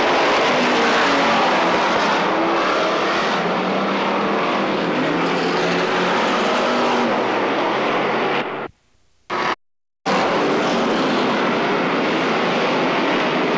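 Pack of stock cars racing, their engines running hard together with pitches that waver up and down as the cars pass. The sound cuts out for about a second and a half about eight and a half seconds in, then returns just as loud.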